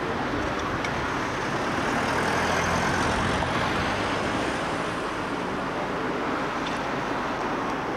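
Steady street traffic noise, swelling slightly about two to three seconds in.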